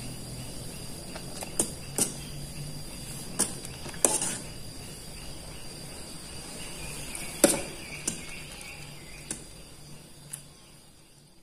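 Water boiling hard in an aluminium saucepan of noodles, a steady bubbling hiss, with a metal fork clinking against the pot about eight times as the noodles are stirred; the loudest clink comes about seven seconds in, and the sound fades near the end.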